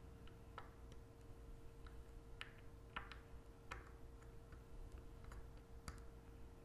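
Faint, irregular metal clicks, about five over several seconds, as a small hand driver turns a narrow dental implant into a model jaw, over a faint steady hum.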